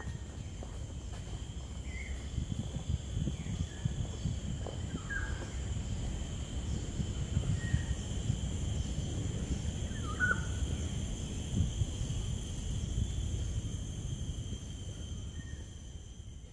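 Tropical forest ambience: a steady high-pitched drone of insects, with a few short bird calls and a low rumble underneath. A second high insect tone joins about halfway through, and the whole fades out at the end.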